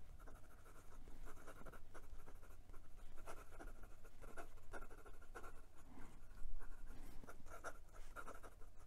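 Quick cursive writing with a Narwhal Nautilus fountain pen: the stiff nib scratches across notebook paper in many short, uneven strokes. The nib has a lot of drag on the paper.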